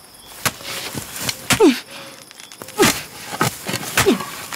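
Thuds about once a second, each followed by a short falling tone, as the sound effect of an action in an audio drama.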